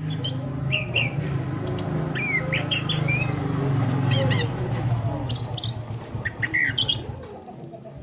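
Chestnut-capped thrush song: quick runs of short whistled notes, sliding up and down, over a steady low hum.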